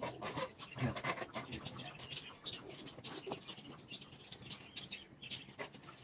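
Scattered soft rustles and small clicks of a net and feathers being handled as a tangled peacock is freed by hand, with faint bird calls in the background.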